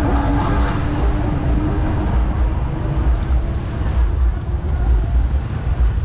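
Street traffic noise: motorbike and car engines running in slow, crowded traffic, with a steady low rumble and an engine hum through the first couple of seconds.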